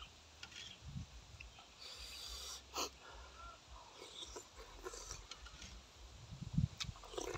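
Close-up eating sounds of a man taking beef intestine soup from a spoon: slurping, breathing through the nose and small mouth clicks, with one sharp click a little under three seconds in. Chewing gets louder near the end.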